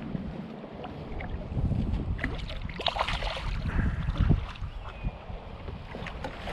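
Wind buffeting the microphone as a low rumble, with scattered knocks and brief splashy noises as a landing net is worked in the water to land a hooked black sea bream.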